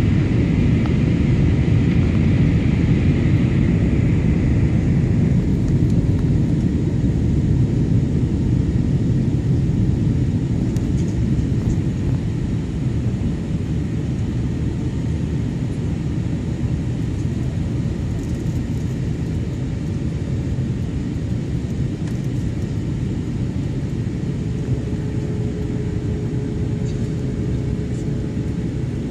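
Airliner cabin noise on approach: a steady low rumble of engines and airflow. A hiss fades away over the first few seconds and the overall level eases down slightly, and a faint steady tone comes in near the end.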